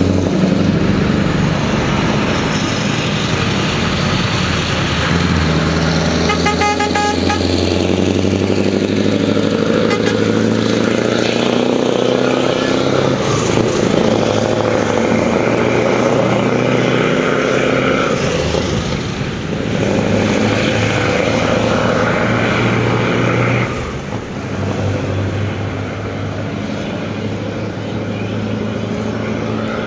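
Scania R500 truck engine pulling away and driving past, its pitch stepping through gear changes and falling away about 24 seconds in. A burst of short horn toots about seven seconds in.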